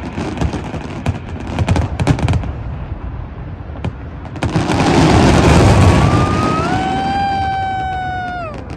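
Fireworks display: rapid crackling and popping of shells bursting overhead, then a louder, denser rush of explosions about halfway through. Near the end a high held tone with overtones rises, holds for about two seconds and glides down as it stops.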